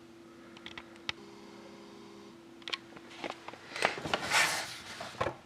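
Handling of a hockey card box tin. A few light clicks and taps come first, then louder rustling and scraping from about four seconds in, over a faint steady hum.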